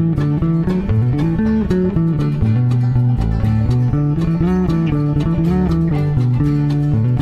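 Electric bass guitar played fingerstyle in a bluegrass bass solo: a steady run of quickly moving plucked notes, with guitar-type picking above it.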